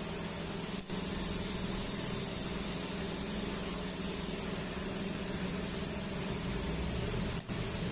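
Steady electrical hum with hiss from a running TIG welding machine, broken by two very short drop-outs, one about a second in and one near the end.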